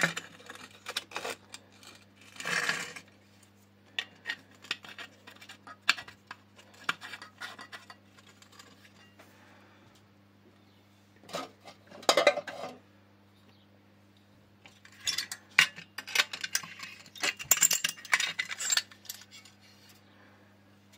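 Small metal parts of a Feuerhand Nr. 75 Atom storm lantern being handled during restoration: scattered light clinks and clicks, with a few short passages of rubbing, one a couple of seconds in, one around the middle and a longer one near the end. A faint steady hum runs underneath.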